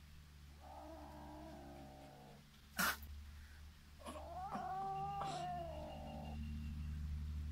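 Kitten meowing in two drawn-out calls, the second louder and longer, with a single sharp click between them.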